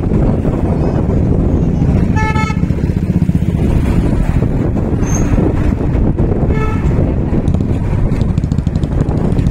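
A vehicle horn honks twice, briefly, about two seconds in and again some four and a half seconds later, over the steady low rumble of wind and road noise from a moving vehicle.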